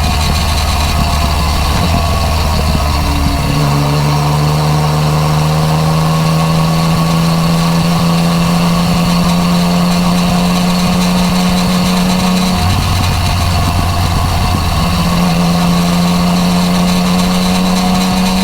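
Yamaha MT-09 Tracer's three-cylinder engine running through an Akrapovič exhaust at steady cruising throttle, its note stepping between a lower and a higher pitch a few times, with wind noise behind it.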